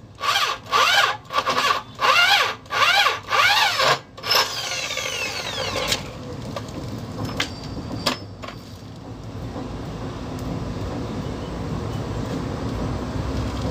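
Corded electric drill with a concrete core bit cutting into a concrete wall, pulsed in about eight short bursts, its motor revving up and dropping back each time, then spinning down about four seconds in. A few sharp knocks follow about seven and eight seconds in over a low steady rumble.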